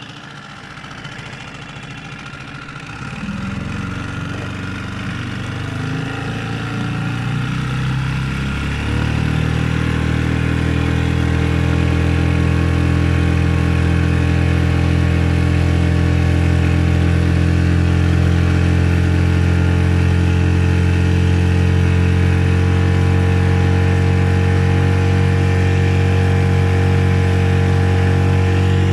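Hidea 5 hp outboard motor throttled up: over the first nine seconds or so it climbs in pitch and grows louder, then runs steadily at full throttle.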